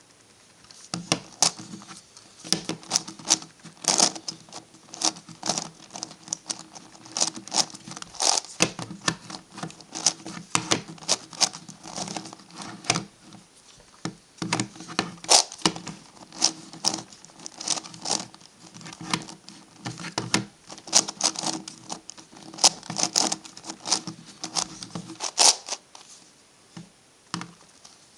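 MF8 Gigaminx puzzle being turned by hand: rapid runs of plastic clicking and clacking as its layers are twisted, starting about a second in.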